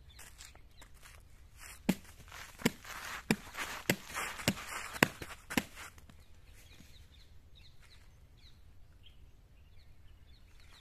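Footsteps on a concrete path: about seven steps at a steady walking pace, starting about two seconds in and fading out after about five and a half seconds. Faint bird chirps follow.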